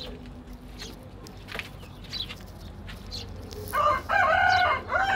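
A rooster crowing once, starting about four seconds in: a long call in several parts that ends on a falling note. A few faint short chirps come before it.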